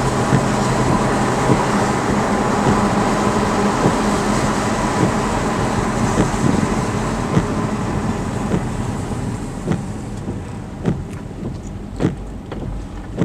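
Car driving, heard from the dashcam inside the cabin: a steady rushing road and tyre noise over a low engine hum, fading from about eight seconds in as the car slows, then several sharp taps and knocks near the end.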